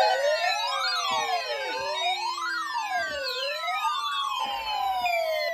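Several warning sirens sounding together. One wails up and down in pitch about every one and a half seconds, while others glide slowly downward in pitch.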